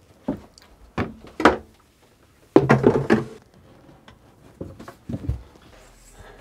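Hollow plastic body of an Airhead composting toilet knocking and thumping against the wooden plinth and cabinetry as it is manoeuvred into place. The loudest cluster of knocks comes about halfway through, with a few lighter bumps after it.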